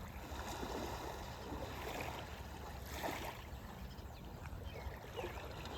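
Water splashing and gurgling in uneven surges.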